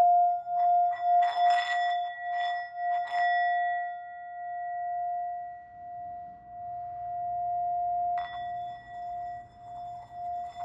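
Bell ringing with one long, wavering tone that pulses in loudness and slowly fades. A few short noisy touches come in the first three seconds, and a fresh strike about eight seconds in brings the ring back up.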